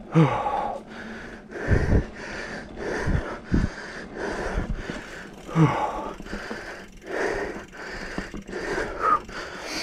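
A mountain biker breathing hard and fast after a climb, quick repeated panting breaths with a couple of voiced gasps. A few low thumps come through about two and three and a half seconds in.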